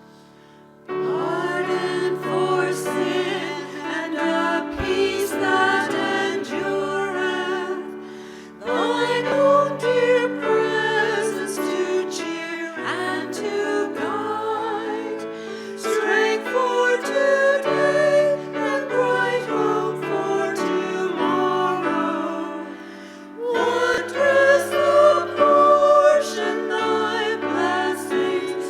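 A choir singing a hymn with keyboard accompaniment, in three long phrases. The singing comes in about a second in, after a fading piano note.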